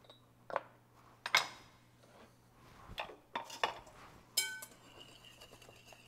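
About five sharp clinks and knocks of kitchenware, ceramic ramekins and a metal whisk against a wooden board and a glass mixing bowl; the last clink, about four seconds in, rings like struck glass. Near the end come soft sounds of a wire whisk starting to mix egg yolks and sugar in the glass bowl.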